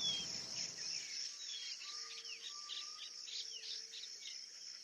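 Woodland ambience: a steady high insect drone of crickets, with many short bird chirps and calls over it and a couple of faint longer whistled notes.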